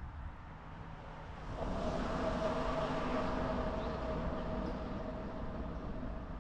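Engine noise of something passing, with a steady hum, swelling in about a second and a half in and easing off near the end.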